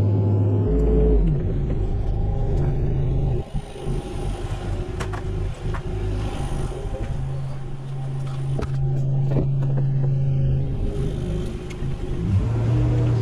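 Mini excavator's diesel engine running, with several sharp knocks and clanks from the work scattered through the middle. The engine settles into a steady even hum about seven seconds in.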